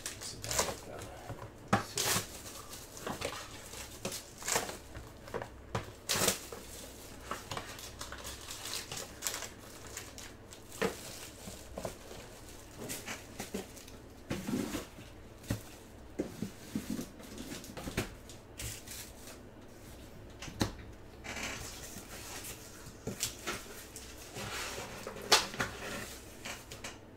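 Irregular crinkles, clicks and taps of trading-card packaging being handled: foil pack wrappers and card boxes being opened and set down.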